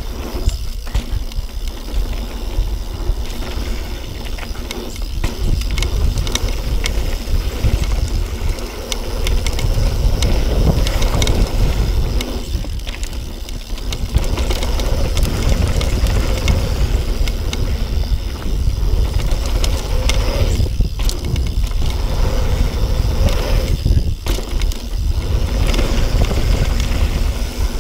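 Yeti SB6 mountain bike descending a dirt jump trail at speed: heavy wind rumble on the camera microphone over the noise of tyres on hardpacked dirt. The noise briefly drops out several times.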